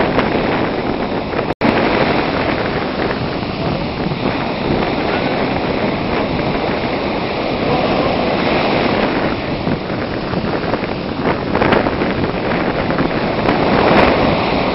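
Beach surf washing ashore, with wind buffeting the microphone. The sound cuts out for an instant about a second and a half in.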